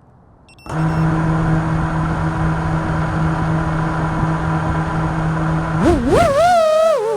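A 5-inch FPV quadcopter's brushless motors (Axisflying AE 2207 1860KV) spin up suddenly about a second in and hold a steady idle whine. Near the end the pitch climbs and wobbles with throttle changes as the quad lifts off.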